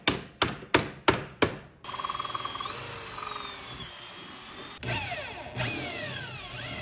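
A claw hammer tapping an aluminum support piece into place, about five quick strikes roughly three a second. Then a cordless drill bores a hole through aluminum bar, its motor whine rising and falling and starting up again twice near the end.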